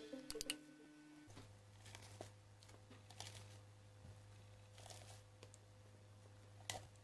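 Very quiet soft taps and scrapes of a silicone spatula dropping whipped mascarpone cream onto ladyfingers in a glass baking dish, a few times, over a steady low hum.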